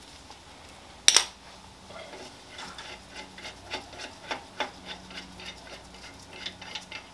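A hand ratchet clicking at about three clicks a second as an 18 mm brake caliper bracket bolt is backed out, after one sharp metallic click about a second in.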